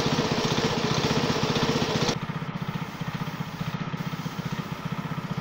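Small petrol-engine air compressor running steadily with a fast, even chugging. A loud spray-gun air hiss runs over it and cuts off abruptly about two seconds in, while the engine keeps running.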